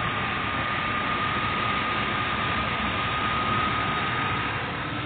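Truck engine idling steadily, with a thin constant whine over the running noise.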